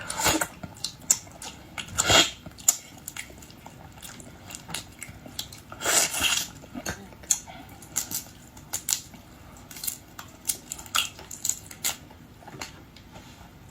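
Close-miked eating of boiled shrimp and lobster: a string of irregular clicks, crackles and smacks as shells are handled and food is chewed, with a few longer rustling bursts about 2 and 6 seconds in.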